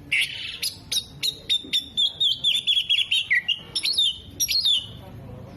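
Oriental magpie-robin singing a loud, varied song: two harsh raspy notes at the start, then a fast run of sharp chips and warbling trills.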